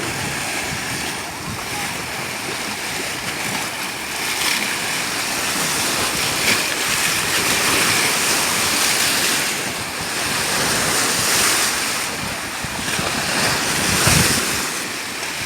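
Sea waves washing against the shore, the surf swelling and falling back every few seconds.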